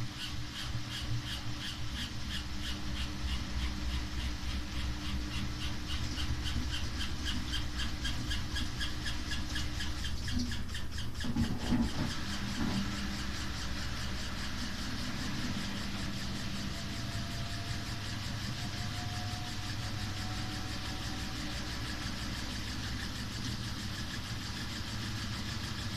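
Samsung WW5300 (WW95T534CAE) front-loading washing machine running a wash and making a very loud noise, a fast regular beat over a steady hum, with a faint rising whine later on. On a machine this new the noise is taken for a fault.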